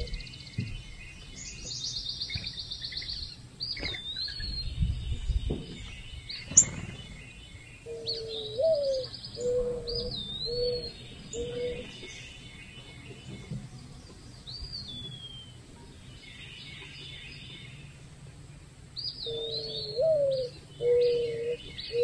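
Mourning doves cooing: a low hooting song of one note, a rising-and-falling note, then three level notes, heard twice, about eight seconds in and again near the end. Small songbirds chirp, trill and whistle throughout.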